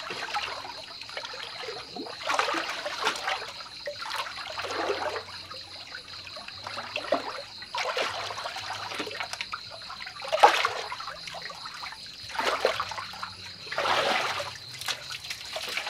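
Water sloshing and trickling in irregular surges as a person moves about in a small pool.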